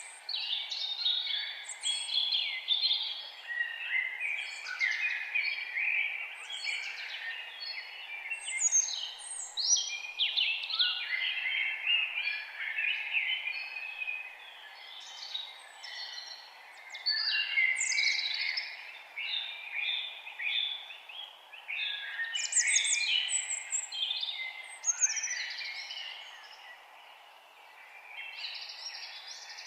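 A chorus of songbirds chirping and singing, with many short, quick calls overlapping over a faint steady background noise. It eases briefly twice before picking up again.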